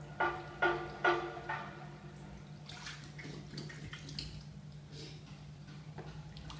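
Bath water sloshing and dripping as a person moves in a filled bathtub: a few short splashes in the first second and a half, then quieter drips, over a steady low hum.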